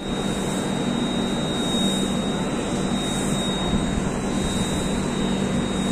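Steady mechanical drone of an Indian Railways express train, with a constant low hum.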